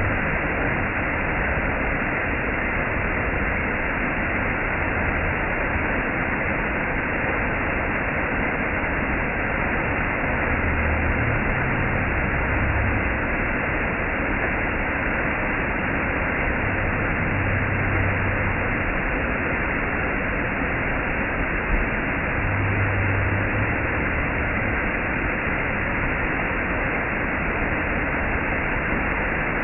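Waterfall: water falling and rushing in a steady, unbroken wash of noise.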